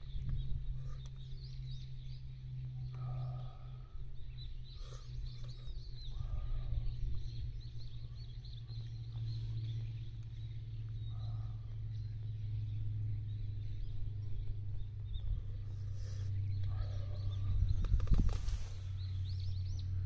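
Outdoor ambience: a steady low rumble with birds chirping now and then, and a brief louder noise near the end.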